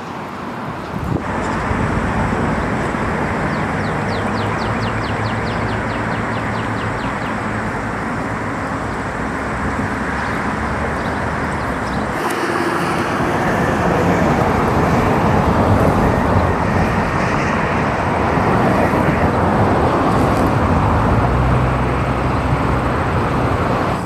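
Steady road traffic noise: the rush of passing cars and tyres over a low engine hum. The sound changes abruptly about a second in and again about halfway through.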